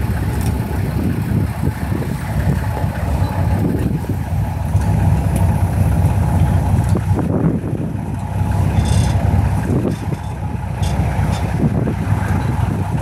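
Safari game-drive vehicle's engine idling, a steady low rumble.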